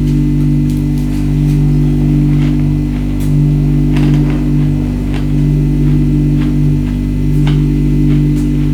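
Background music: a steady low drone of several held tones, with faint, scattered clicks over it.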